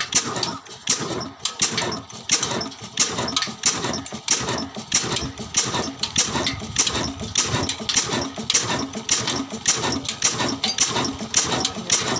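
Old black stationary diesel engine with heavy flywheels running just after being hand-started, its exhaust beating steadily, a few beats a second.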